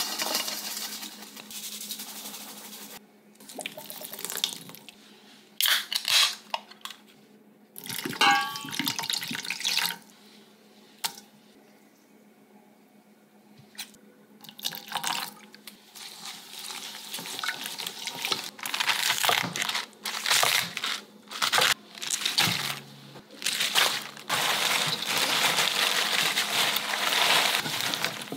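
Seasonings go into a stainless steel bowl in short bursts: red chili powder shaken in, then liquid poured from bottles. Over the second half, gloved hands toss napa cabbage in the wet chili paste, a near-continuous wet squishing and rustling against the bowl.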